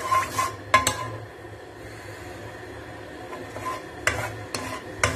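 Plastic spatula scraping and knocking against a nonstick wok while garlic is stirred in oil. There are a few sharp clicks in the first second and again near the end, with a quieter steady hiss in between.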